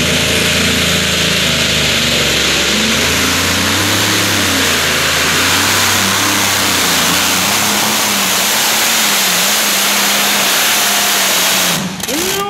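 Modified pulling tractor with several big piston engines running at full power as it drags the brake sled, a loud steady engine note that wavers in pitch. The sound breaks off abruptly near the end.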